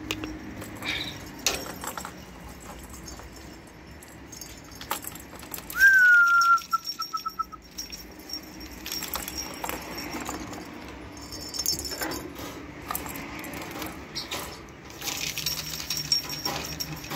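Plastic balls clicking and rattling in a ball-track cat toy as kittens bat at it, in scattered short clicks. About six seconds in, a loud, thin, high call dips slightly in pitch, holds, then breaks into a few quick pulses.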